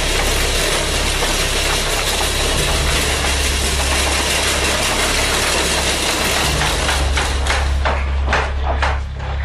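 A vehicle engine running steadily, with a strong low hum under a dense hiss. From about seven seconds in, a regular ticking of about three clicks a second sounds through it.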